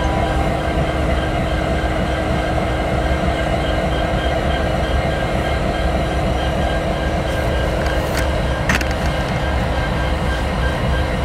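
Diesel-electric freight locomotives, including an EMD GP59, running close by: a steady engine rumble with a steady whine over it. A brief click sounds about nine seconds in.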